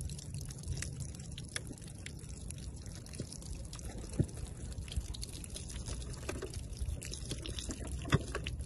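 Water pouring and splashing out of a bullet-holed plastic gallon water jug as it is emptied onto the ground, with two sharp knocks, about four seconds in and near the end.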